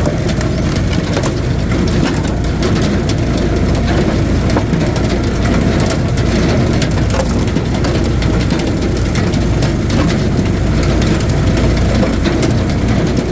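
Wood splitter's engine running steadily under load, with many short cracks and snaps of wood as a log is forced apart.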